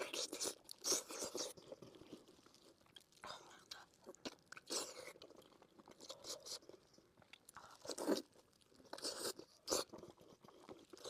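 Close-miked eating sounds: a person biting and chewing sweet pork in spicy sauce, in irregular bursts of clicky, crackly mouth noise with short pauses between them.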